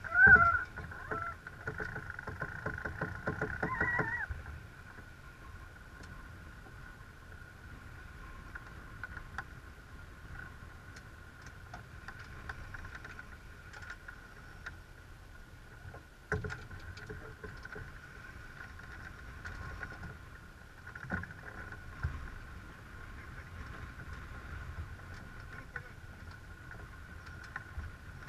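Sailing yacht under way: a steady rush of water and wind over the hull, with a faint steady high tone throughout. A louder rapid rattling with rising tones fills the first four seconds, and a few single knocks sound later on.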